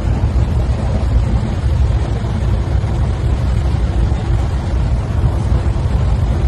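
Steady low rumble of a moving passenger train, heard from inside the coach.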